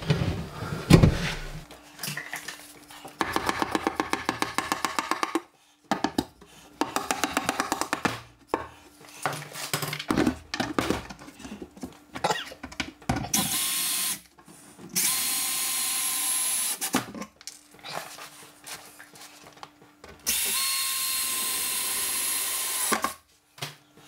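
Cordless drill-driver driving screws through a kitchen cabinet base into a plinth support, in several separate runs. Some runs are rapid, evenly spaced clicking, and the longer ones are a steady whine. A few knocks in the first second come from the plinth piece being tapped into place.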